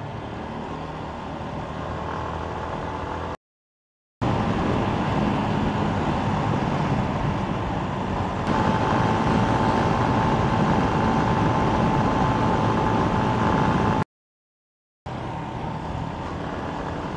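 Yamaha Sniper 150 single-cylinder motorcycle engine running at a steady cruise, mixed with wind noise on the rider's microphone. The sound cuts out to silence twice for under a second, and it is louder after the first gap.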